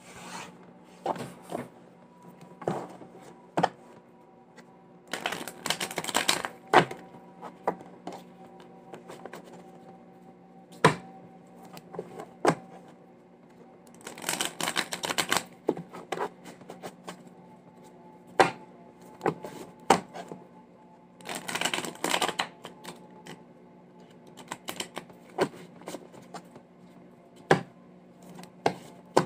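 A tarot deck being riffle-shuffled by hand: three clattering shuffles of about two seconds each, with scattered sharp clicks of the cards between them. A steady low hum runs underneath.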